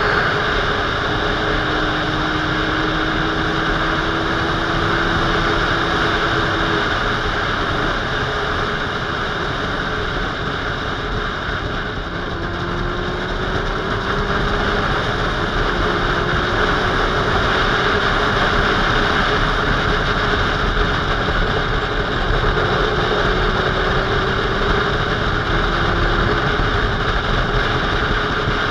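Wind rushing over a motorcycle-mounted camera at road speed, with the motorcycle engine's steady drone underneath, its note creeping slowly up in pitch a few times.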